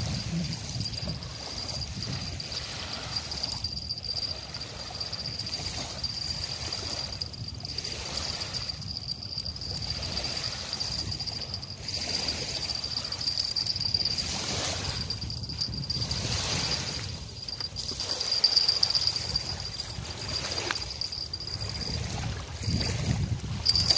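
Small waves lapping and washing on a sandy shore, a steady watery wash that swells louder now and then, over a low rumble. A thin, steady high-pitched tone runs underneath.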